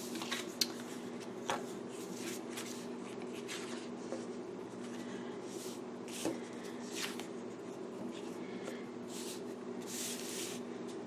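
Paper rustling and brief scrapes, scattered irregularly, as planner pages and a sticker sheet are handled, over a steady low hum.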